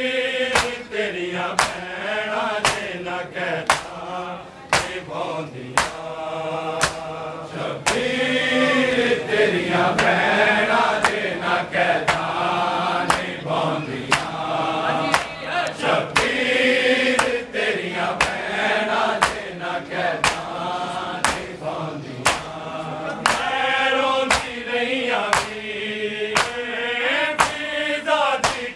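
Male voices chanting a Punjabi noha lament, with a group of men doing matam, slapping their bare chests with open hands in a steady, even rhythm under the singing.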